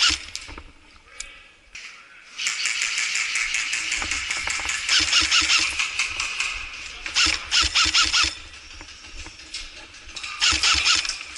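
Airsoft electric rifles firing several rapid full-auto bursts, each a fast mechanical rattle of shots, the strongest bursts a few seconds in and again near the end.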